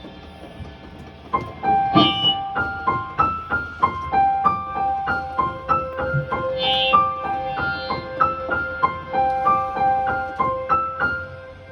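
Electric keyboard playing a melody of short stepped notes. It starts about a second and a half in and runs through a repeating pattern, with a lower note held under the second half.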